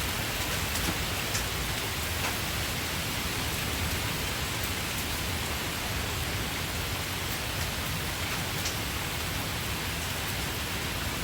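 Hailstorm: hailstones pelting down in a steady dense hiss, with a few sharper ticks of single stones striking.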